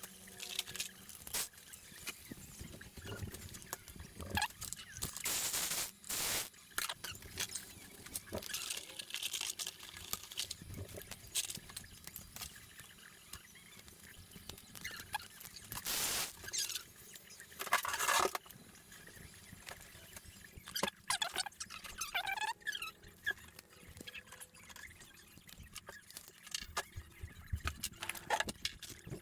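Irregular clinks, knocks and scrapes, with a few short squeaks, of hand tools and metal parts as a 4L60 automatic transmission is taken apart.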